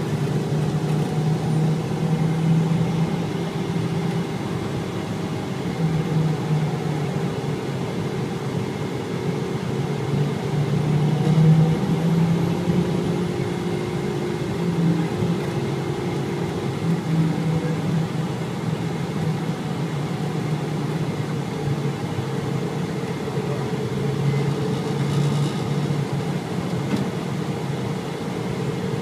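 Engine and road noise of a military patrol vehicle, heard from inside as it drives, a steady low drone whose pitch drifts up and down slightly as the speed changes.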